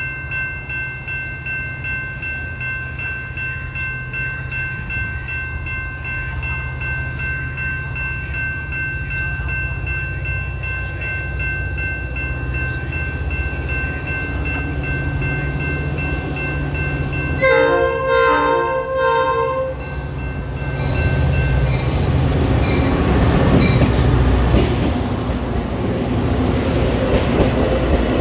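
Grade-crossing bells ringing steadily over the low rumble of an approaching diesel train; about 17 seconds in, the train's horn sounds in broken blasts for about two seconds. From about 20 seconds in, the train's rumble and wheel noise build as it comes through.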